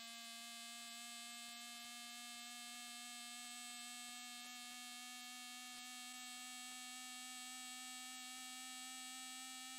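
Faint, steady buzzing hum: one pitched tone with a long row of overtones, creeping very slightly up in pitch.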